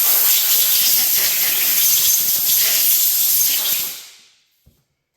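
Compressed-air blow gun hissing in one long blast, blowing oil off a hydraulic pump plate; it fades out about four seconds in.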